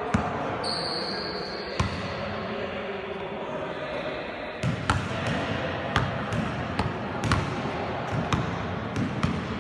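Basketballs bouncing on a sports-hall court floor as sharp separate thuds: a few single bounces early on, then frequent, irregular bounces, several a second, from about halfway in.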